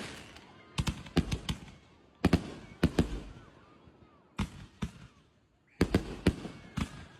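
Fireworks going off in about five quick clusters of sharp bangs, each bang ringing out briefly, with short quiet gaps between the clusters.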